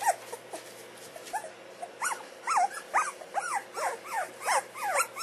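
Young puppies whimpering: a run of short, high squeaky cries, each rising and then falling in pitch, sparse at first and then coming about three a second from about two seconds in.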